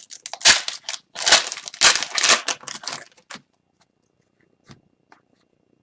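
Wrapper of a hockey card pack being torn open and crinkled in a run of sharp bursts, stopping about three seconds in, followed by a few faint ticks.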